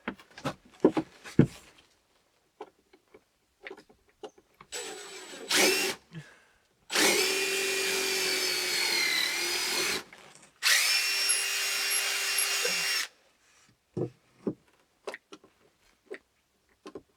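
Cordless impact driver with a drill bit pre-drilling holes in very dry wood, running in two steady bursts of about three seconds each, the whine sagging in pitch under load near the end of the first. Small knocks and handling clicks before and after.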